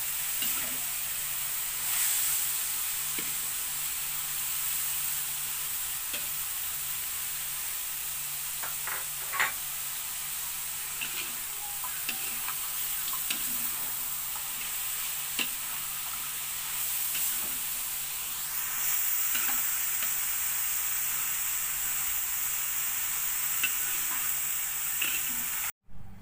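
Bitter melon and salted anchovies stir-frying in an aluminium wok: a steady sizzle, with a metal spatula scraping and clicking against the pan now and then. The sound cuts off abruptly near the end.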